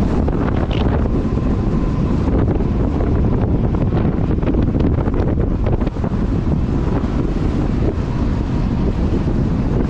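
Heavy wind buffeting on a helmet-mounted action camera's microphone from a bicycle riding at about 45 to 55 km/h, a steady dense roar.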